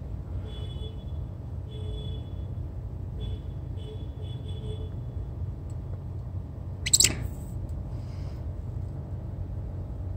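Steady low rumble of background room noise, with faint on-and-off tones in the first half and one short sharp knock about seven seconds in.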